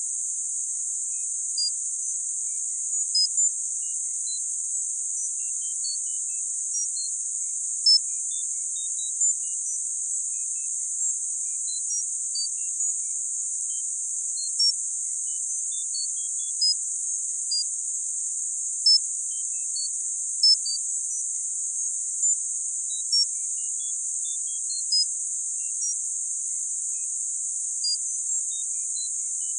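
Synthetic tinnitus-therapy sound: a steady, very high-pitched hiss of narrow-band noise, sprinkled with short high tone pips at irregular moments, some louder than others.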